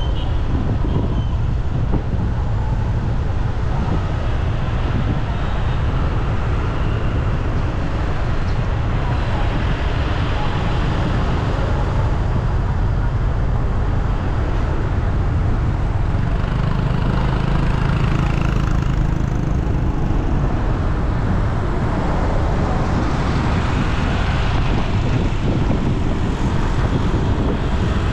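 Steady road traffic noise: the continuous rumble of motor vehicles passing.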